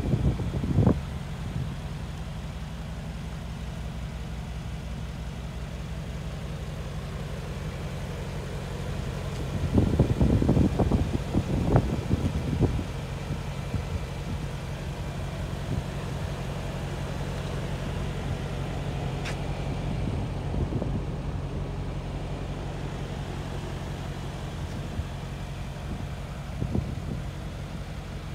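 2019 Mercedes-AMG G 63's twin-turbo V8 idling steadily, with a stretch about ten to twelve seconds in where the sound swells briefly louder and rougher.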